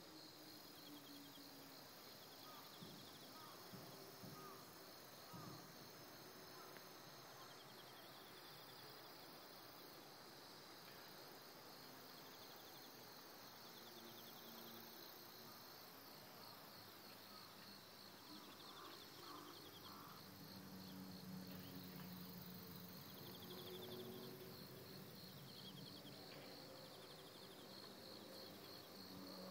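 Faint chorus of insects, crickets trilling in a steady, finely pulsing buzz. A faint low hum swells for a few seconds past the middle.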